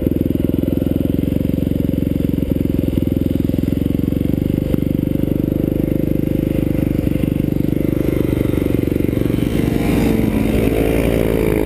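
Dirt bike engine running steadily as it pulls through deep snow. Near the end a second dirt bike's engine joins in close by, its pitch wavering up and down.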